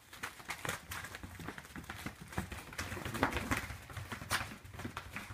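A chihuahua thrashing and shaking a stuffed toy chicken on carpet: a rapid, irregular run of scuffles, flaps and soft thumps from its paws and the flailing toy.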